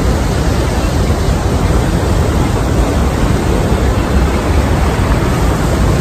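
Roar of Niagara Falls: a loud, steady rush of falling water, heaviest in the low end.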